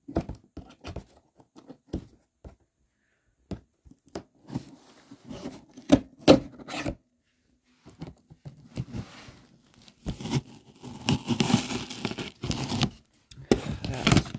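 A knife slitting the plastic packing tape along a cardboard box's seam: scattered scrapes and clicks with pauses, then a longer stretch of tape tearing and cardboard scraping about ten seconds in.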